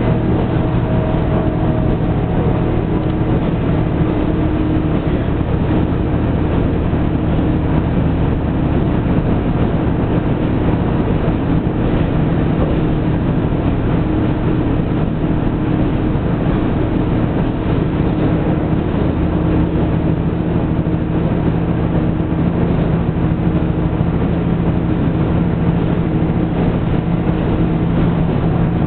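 Diesel railcar running along the line, heard from inside the car: a steady low engine drone with constant running noise.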